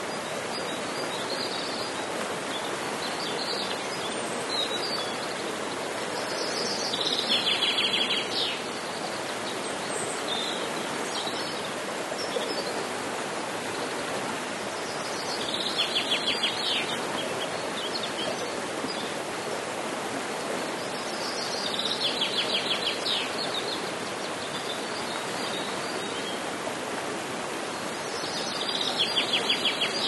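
Mountain stream rushing steadily over rocks in a small cascade. A songbird sings a short, rapid run of high repeated notes four times, roughly every seven seconds, each lasting about a second and a half.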